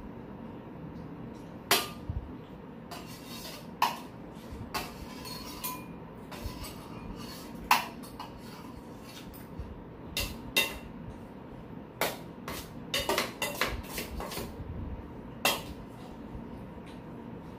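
Metal spoons clinking and scraping against stainless-steel bowls and plates during a meal. The clinks come irregularly, about a dozen in all with a quick cluster near the end, and some ring briefly, over a steady low hum.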